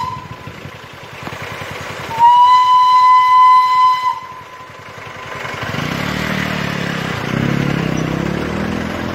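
Darjeeling Himalayan Railway steam locomotive's whistle sounding one steady, high blast of about two seconds, starting about two seconds in. In the second half a motor vehicle's engine runs, its pitch rising and falling.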